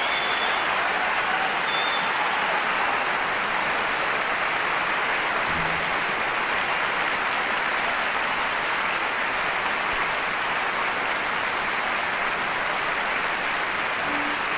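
Large audience applauding steadily, with a couple of short whistles near the start.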